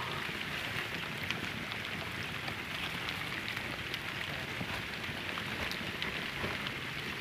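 Many young crickets scrambling over the dry nesting material in a rearing box. The sound is a steady rustle scattered with many small ticks.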